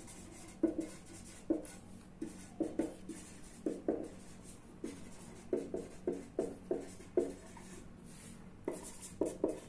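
Marker pen writing on paper: a run of short, squeaking strokes, pausing briefly near the end before more strokes.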